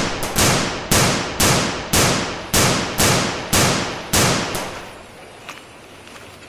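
Gunfire: a steady string of single shots, about two a second, each with a long echoing tail, that stops about four and a half seconds in.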